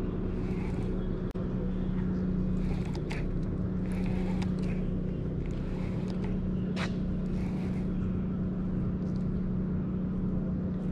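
A steady mechanical hum holding one low pitch throughout, with a few light clicks over it; the sound drops out for an instant about a second in.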